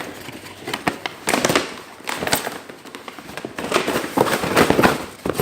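Polystyrene foam packaging being broken apart by hand: a run of sharp cracks and crunches, densest in the second half.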